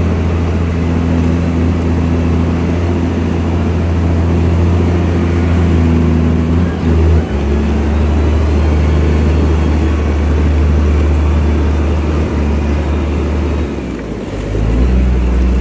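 A vehicle engine running steadily and loudly close by, a low drone whose note shifts suddenly about 7 seconds in and again near the end.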